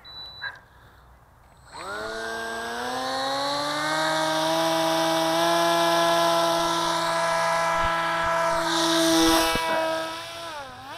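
The electric motor and propeller of an Assassin RC flying wing spin up about two seconds in, rising in pitch to a steady high whine while the plane is hand-launched and climbs away. The pitch dips briefly near the end.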